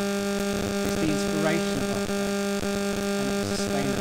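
Loud, steady electrical mains hum with many overtones, unchanging throughout.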